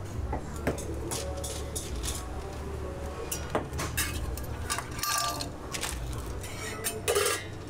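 Metal spatula clinking and scraping on a cast-iron crepe griddle as a jianbing is folded, a string of short clicks with the loudest scrape about seven seconds in, over a steady low hum.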